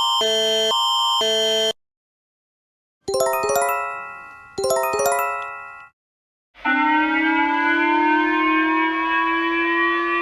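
A run of emergency alert tones. A pulsing electronic alarm chord, about two beeps a second, cuts off near two seconds in. After a pause come two ringing runs of chime notes, each fading away. About six and a half seconds in, a steady siren-like chord begins and slowly rises in pitch.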